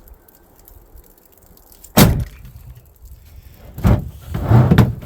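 Gear being handled and set down in a vehicle: a sharp thump about two seconds in, then another knock and a run of knocks and rustling near the end.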